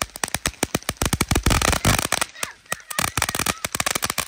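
Firecrackers going off in a rapid, irregular string of sharp cracks, about ten a second, coming thickest and heaviest around the middle.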